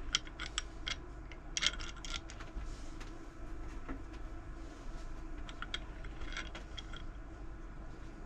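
Scattered metallic clicks and clinks of a cable lug crimping tool being handled and reset to a smaller size, 3 gauge, in clusters near the start, about two seconds in and about six seconds in.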